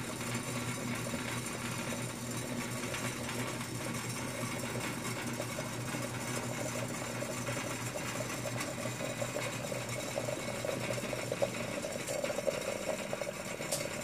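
Glass vacuum coffee pot bubbling steadily on a gas burner. Water boiling in the lower bowl pushes a rapid chatter of bubbles up through the tube into the brewing coffee, over a steady low hum.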